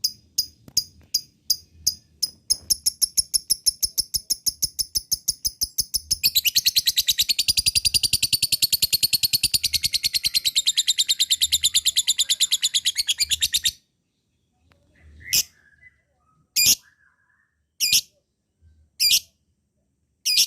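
Lovebird ngekek: a run of sharp, high chirps that speeds up into a long, rapid, continuous chattering trill lasting about seven seconds, which stops abruptly. After a short pause come single loud chirps about once a second.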